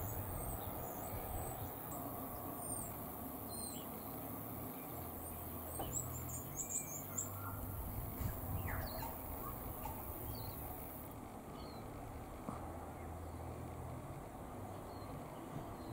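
Small birds chirping in the background: short, high calls scattered throughout, thickest about six to seven seconds in, over a faint low hum.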